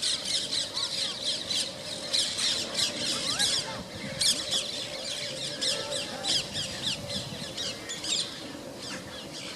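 Flock of rose-ringed parakeets screeching: many short, shrill, falling calls overlapping in a dense chorus that thins out near the end.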